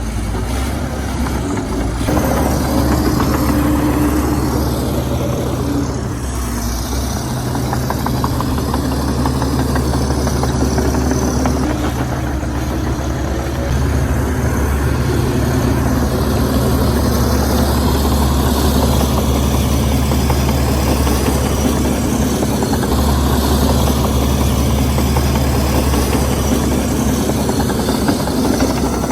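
Komatsu D61EX bulldozer's diesel engine running steadily with a low drone, easing off briefly a couple of times.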